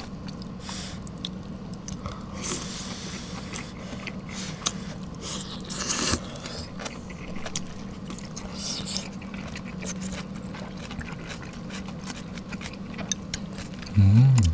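Close-miked chewing of thin-sliced shabu-shabu beef and vegetables: many small wet mouth clicks and smacks, with two louder swishing sounds about two and a half and six seconds in. A short voiced sound comes near the end.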